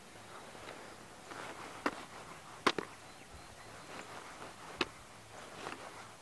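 Faint handling noise with a few short, sharp clicks, about four in all: hands working fishing line, hook and a soft plastic lure close to the microphone while rigging.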